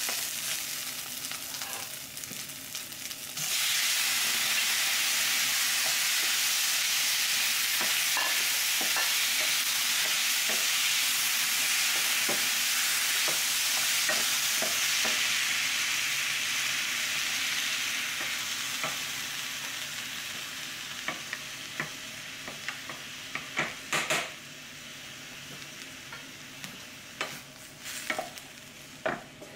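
Onions sizzling in a stainless steel skillet, then a sudden loud sizzle about three seconds in as chopped tomatoes go into the hot pan. The sizzle holds for several seconds, then slowly dies down, while a wooden spatula stirs and taps against the pan.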